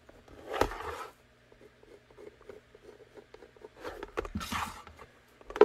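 Stiff Kydex holster shell being handled and shifted on a cutting mat: scraping, rustling sounds about half a second in and again around four seconds in, then a sharp knock right at the end.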